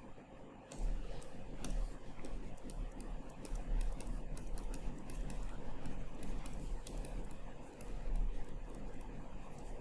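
Stylus tapping and scratching on a tablet screen during handwriting: a run of light, irregular clicks that starts about a second in, with a low rumble underneath.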